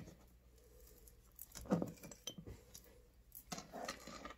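Faint handling sounds of lemon peel pieces being pushed into a glass mason jar: soft knocks and light clinks against the glass, a couple around the middle and a few more near the end.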